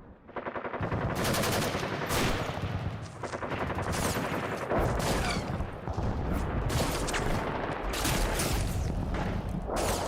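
Rapid gunfire: many shots in close succession, like automatic fire, running almost without a break and fading out at the end.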